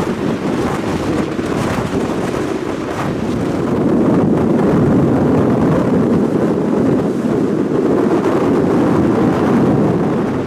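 Storm waves crashing against a pier and its lighthouse in a steady roar of surf, with wind buffeting the microphone. The roar grows louder about four seconds in.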